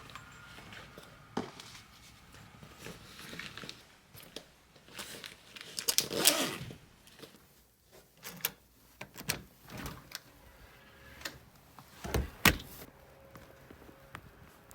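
Handling noises of someone packing a bag to leave: scattered clicks, knocks and rustling, a longer sliding scrape about six seconds in, and two sharp knocks near the end.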